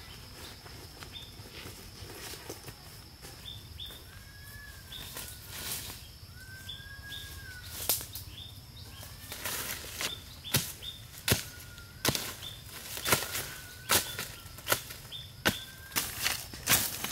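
A blade slashing and striking through small plants and undergrowth, sharp swishing cuts coming about three every two seconds from about halfway through. Birds chirp and whistle, with a steady high insect tone behind.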